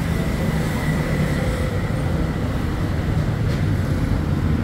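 Steady road traffic noise with a continuous low rumble.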